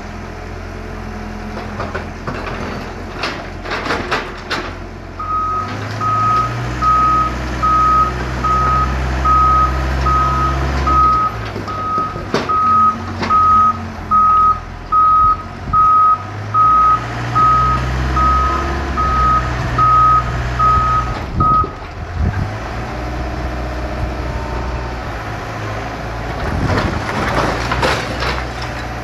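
A Doosan wheeled mini excavator's diesel engine runs, swelling and easing as the hydraulics take load. A single-pitched warning alarm beeps steadily, about one and a half beeps a second, from about five seconds in until about twenty-two seconds. Bricks and concrete clatter and knock as the bucket breaks and shifts rubble, most of all near the start and near the end.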